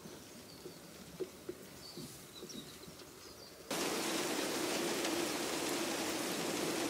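Quiet outdoor air with a few faint bird chirps, then about three and a half seconds in a steady hiss of falling rain starts suddenly and holds.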